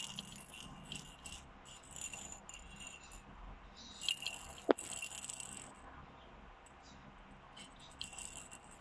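A plastic ball rattle shaken in a baby's hand, its loose inner pieces rattling in short irregular bouts. A single sharp click about halfway through is the loudest sound.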